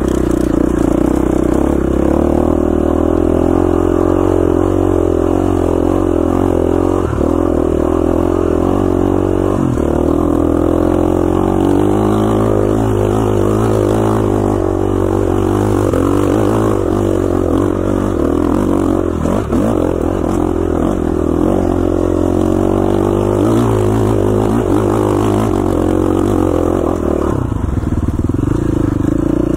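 KTM 450 XCF dirt bike's single-cylinder four-stroke engine running under load as the bike climbs a dirt trail, its pitch rising and falling with the throttle. It eases off briefly near the end.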